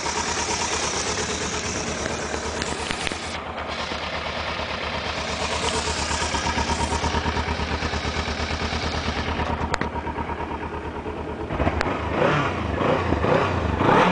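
Kawasaki Ninja 300's parallel-twin engine idling steadily, then revved in a few quick throttle blips over the last two or three seconds.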